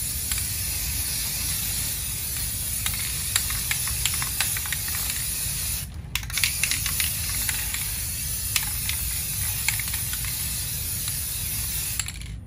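Aerosol spray can of high-heat primer spraying a steady hiss onto a drum brake, laying on a heavier final coat, with one short break about halfway through and stopping just before the end. A few light clicks sound over the hiss.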